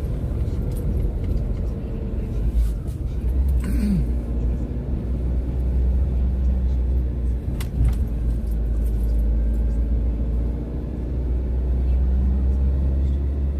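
Car driving along a road, heard from inside the cabin: a steady low engine and road rumble. A brief knock comes about four seconds in and another near eight seconds.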